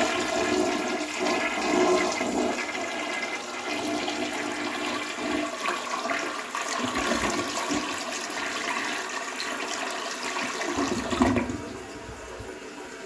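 Toilet flushing: a steady rush of water that starts suddenly and runs for about eleven seconds. It drops to a quieter, steady flow near the end as the tank refills.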